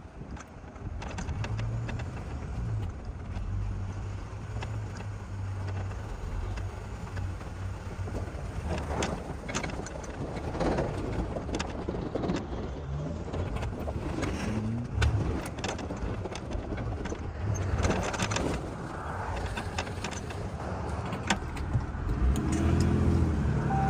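Tow truck's engine running at low speed while reversing with a shed trailer in tow, with a few scattered knocks.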